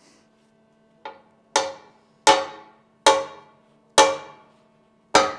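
A pair of ball-peen hammers friction-welded head to head knocked against a steel welding table: six metallic clanks, roughly one a second, the first lighter than the rest, each ringing briefly.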